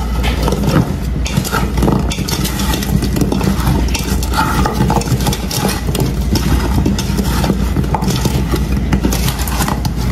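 Wooden spoon stirring meatballs in barbecue sauce in a stainless-steel pot, with repeated scrapes and knocks against the metal. A steady low hum runs underneath.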